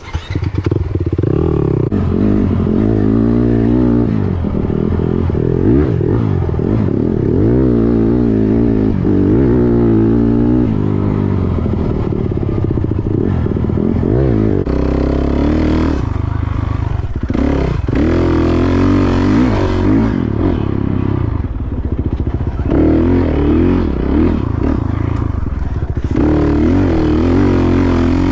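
Dirt bike engine being ridden, its revs rising and falling over and over, with the throttle briefly dropping off several times in the second half.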